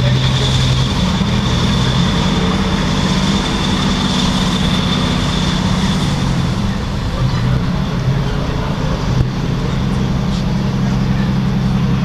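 Ship's diesel engines running steadily with a low drone, the note shifting about two-thirds of the way through. A thin high whine runs over it in the first half.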